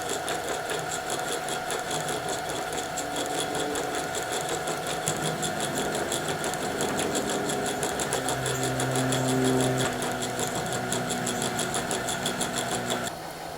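Sewing machine's bobbin winder running steadily, winding thread onto a refill bobbin for an embroidery machine, with a fast even whir; it stops abruptly near the end once the bobbin is full.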